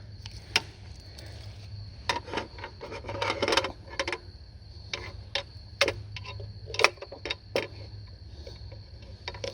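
Camp cooking gear and firewood being handled: irregular sharp clicks, knocks and clatter, busiest around two to four seconds in.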